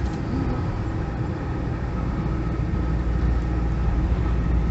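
A vehicle's engine and road noise heard from inside the cab while climbing a hill: a steady low rumble with a faint, steady high whine above it.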